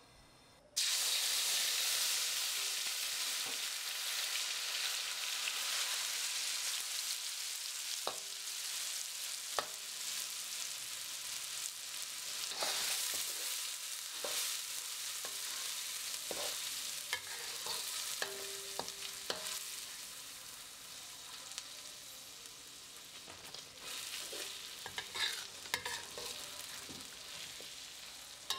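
Ground chili, garlic and onion spice paste sizzling in hot oil in a metal wok. A metal spatula stirs and scrapes it, with many sharp taps and scrapes against the pan. The sizzle starts suddenly about a second in, as the paste hits the oil, and slowly eases off.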